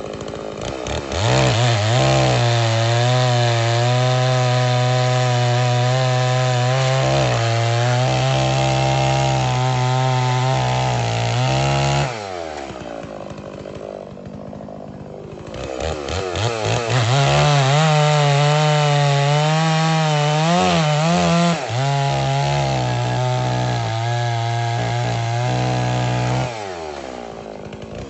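Holzfforma G660, a 92 cc two-stroke chainsaw with a 36-inch bar, revving to full throttle and cutting through scrap wood twice, each cut lasting about ten seconds. The engine pitch wavers under load and drops back to idle between the cuts and at the end.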